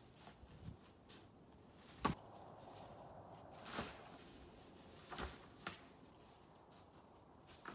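Quiet outdoor ambience broken by a handful of faint, sharp clicks and knocks at uneven intervals.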